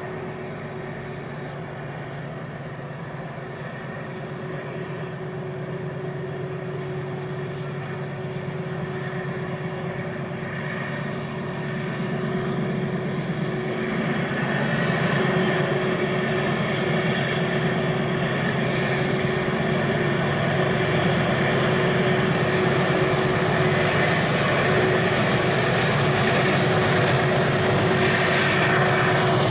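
MLW diesel-electric locomotive hauling a container freight train, approaching with a steady engine drone that grows louder. It is loudest near the end as the locomotive passes close by.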